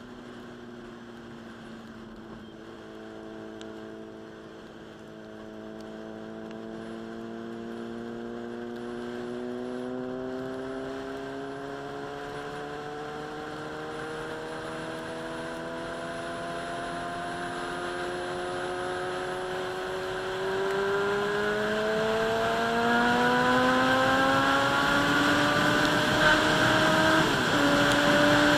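Sport motorcycle engine pulling steadily, its pitch rising slowly and its sound growing louder, with a brief dip in pitch near the end.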